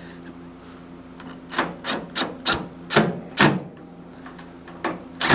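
Cordless impact driver run in short blips, about six in quick succession and then two more near the end, snugging fender bolts on a truck body.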